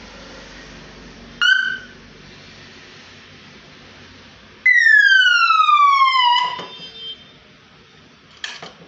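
Panic alarm sounding: a short beep about a second and a half in, then a loud siren tone falling steadily in pitch for nearly two seconds that cuts off, and a brief beep near the end, over a steady hiss.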